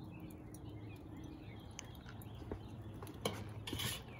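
Quiet backyard ambience with a few faint bird chirps, then a couple of brief knocks and rustles near the end.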